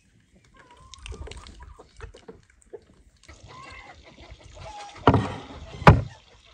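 A round wooden board set down on a wooden plank table: a louder stretch of handling noise about five seconds in, then one sharp wooden knock.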